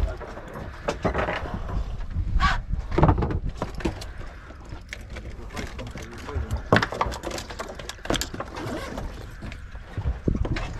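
Drifting fishing boat: a steady low rumble of wind and water against the hull, with irregular knocks and clicks from fishing tackle being handled.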